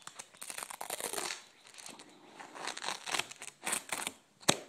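Hook-and-loop (Velcro) tape being peeled apart from its roll: a rasping, crackly ripping in two spells, with a single sharp click near the end.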